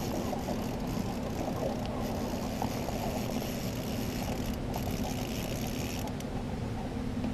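Small outboard motor running steadily at low trolling speed, a constant even hum.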